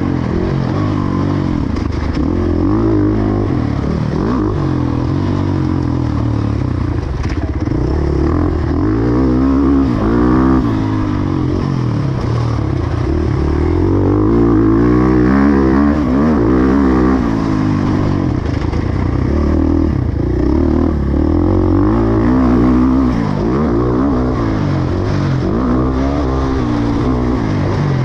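Motocross bike engine revving up and falling back again and again, its pitch sweeping up and down every second or two as the throttle is opened and closed.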